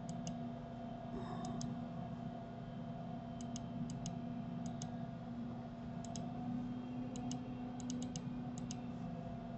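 Computer mouse clicking: short sharp clicks, mostly in close pairs like a press and release, coming irregularly about nine times, over a steady low hum.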